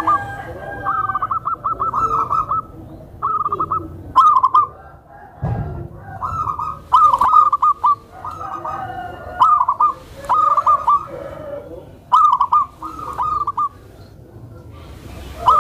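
Zebra dove (perkutut) singing: a string of short phrases of rapid, fluttering staccato coos, each about half a second to a second long, repeated with brief pauses.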